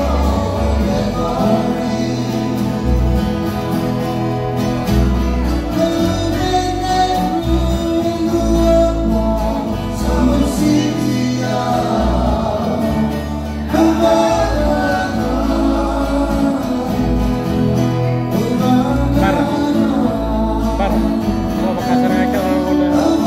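Fijian string-band song played live: several men singing together over strummed acoustic guitar and ukulele.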